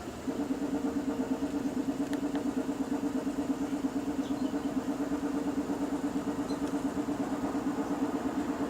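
2007 Nissan Quest's 3.5-litre V6 idling with the cylinder 1 injector shut off by the scan tool. About a quarter second in the engine note turns into a rhythmic, uneven pulsing, about six beats a second. The engine running rough with that injector cut shows cylinder 1 is firing normally.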